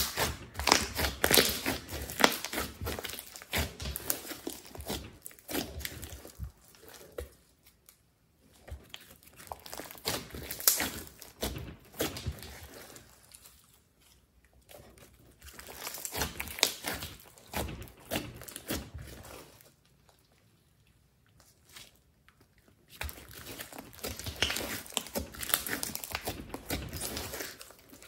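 Thick orange glitter slime being stretched, folded and pressed by hand, giving sticky crackling and popping sounds. They come in several bursts with short quiet gaps, the longest about two-thirds of the way through.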